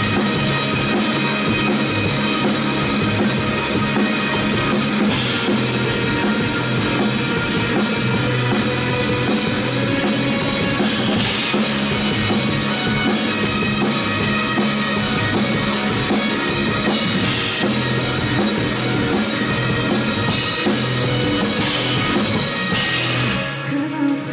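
Live rock band playing an instrumental passage, driven by a full drum kit with bass drum and snare. The band drops back sharply about a second before the end.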